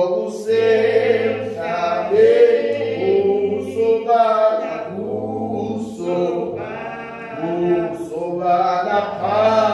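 A congregation singing a hymn unaccompanied, several voices in parts holding long notes phrase by phrase.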